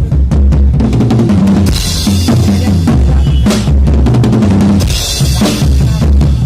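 Drum kit played through a song, with kick and snare beats over sustained low bass notes that change pitch. A cymbal crash rings out twice, about two seconds and five seconds in.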